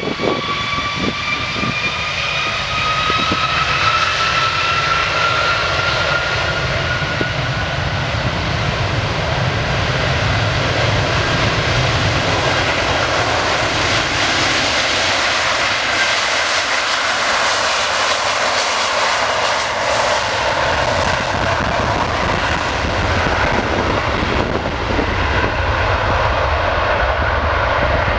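Airbus A330 twin jet engines at takeoff power on the takeoff roll. A whine climbs slowly in pitch over the first several seconds, then gives way to a loud, broad roar as the airliner rolls past and accelerates away down the runway.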